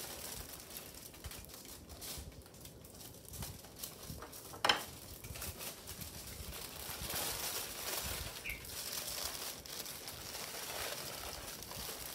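Aluminium foil crinkling and rustling as it is folded around a long sandwich, with one sharp tap a little under halfway through.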